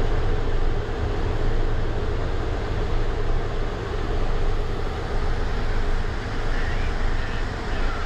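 Steady low rumble of idling traffic stopped in a snowbound jam, with a constant hum running through it.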